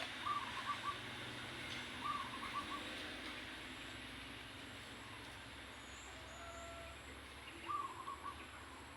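Chicken calling three times, each call a quick run of four or five short notes.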